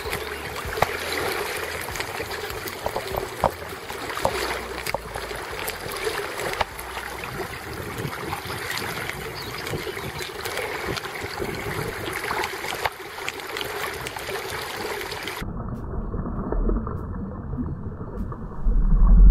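River water running and gurgling around a landing net held in the current, with scattered small clicks and splashes. About three-quarters of the way through the sound turns muffled, and near the end a loud low rumble starts.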